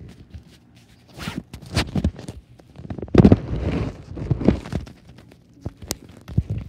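Handling noise on the phone's microphone as it is lowered and set down in the grass: a string of uneven rubbing, scraping and thumping sounds, loudest around the middle.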